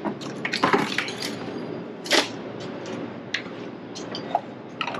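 Hard objects being handled and rummaged through: scattered light clinks and knocks, with one brief scraping or rustling burst about two seconds in.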